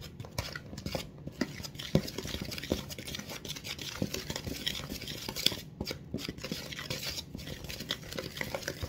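Plastic whisk stirring dry cookie ingredients around a plastic mixing bowl: a steady scraping with repeated light clicks as the whisk knocks against the bowl.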